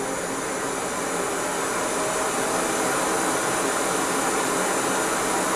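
Transcend 365 Mini auto CPAP machine running with its humidifier and hose attached and no mask: a steady, airy blower hiss with a faint hum, getting a little louder about two seconds in.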